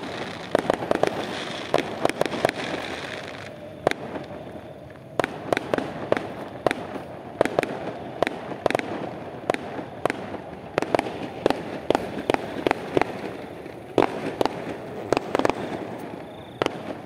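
Fireworks going off: a long run of sharp bangs at irregular intervals, over a dense hissing crackle in the first few seconds. There is a short lull about four seconds in, then the bangs resume.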